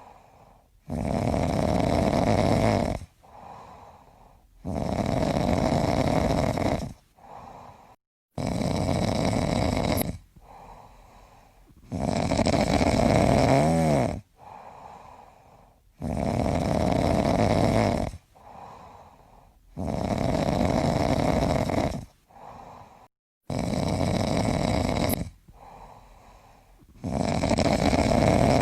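A person snoring heavily: a loud snore on each breath in, lasting about two seconds and coming about every four seconds, with a much softer sound on each breath out.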